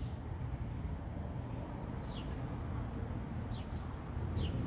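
A bird chirping outdoors: four short, high chirps, each falling slightly in pitch, spread over a few seconds, over a steady low rumble.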